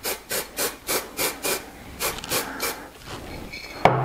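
An aerosol can of spray adhesive being shaken, its mixing ball rattling in quick, even strokes about four times a second, followed by a single sharp click near the end.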